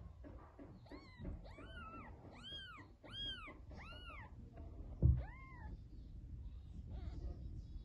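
Newborn kittens mewing: a run of about seven high-pitched mews, each rising and falling, then one more about five seconds in. A brief thump comes just before that last mew.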